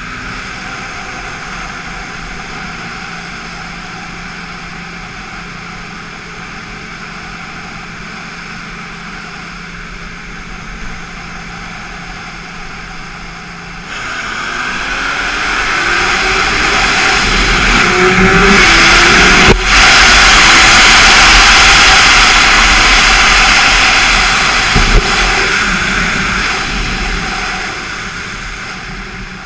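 BMW S1000RR's inline-four engine cruising steadily, then opening up hard about halfway through: the engine note climbs in pitch and a loud rush of wind builds over it, easing off near the end.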